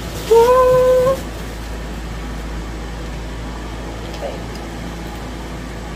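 A woman's short held exclamation of delight, steady in pitch and rising slightly at its end, under a second long, about half a second in. After it there is only the steady hum and hiss of a running electric fan.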